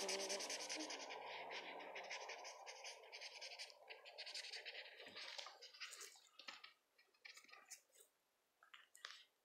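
Felt-tip pen scratching on squared paper in quick back-and-forth colouring strokes, faint, thinning out to a few separate strokes near the end.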